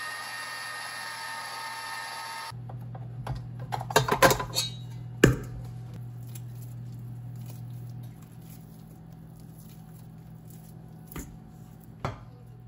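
KitchenAid stand mixer's motor running with a steady whine as the dough hook kneads pizza dough, cutting off suddenly about two and a half seconds in. Then come metal clanks and knocks as the mixer head is tilted up and the steel bowl and dough hook are handled, the loudest a second or two after the motor stops, with a few lighter knocks near the end.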